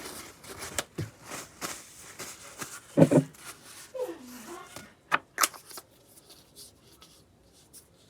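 Rustling and clicking of small objects being handled close to the microphone, with a loud thump about three seconds in and two sharp clicks about five seconds in.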